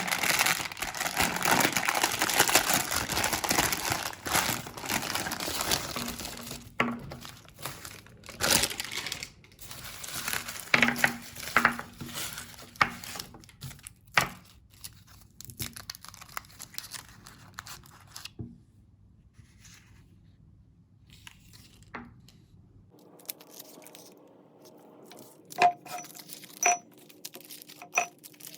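Crinkling and tearing of candy wrappers, dense for the first several seconds, then scattered crinkles and clicks. Near the end a faint steady hum with a few light clinks.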